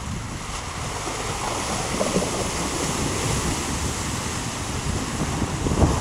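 Water rushing and splashing as a Mitsubishi Pajero SUV ploughs through a shallow river, with wind buffeting the microphone.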